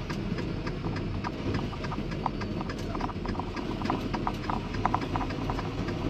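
Steady low rumble inside a diesel semi-truck's cab on the highway, with a quick, irregular run of light clicks and ticks over it.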